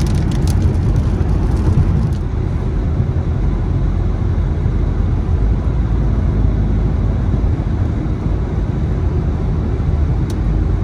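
Car driving through a heavy rainstorm: steady low road rumble, with a quick run of sharp clicks in the first two seconds and one more click near the end.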